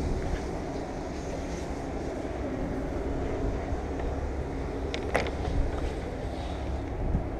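Steady low background rumble, with a faint steady hum coming in about two and a half seconds in and two light clicks around five seconds in.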